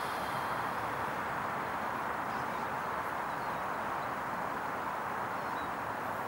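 Steady, even outdoor background hiss with a few faint high chirps; no distinct sound from the exercise itself.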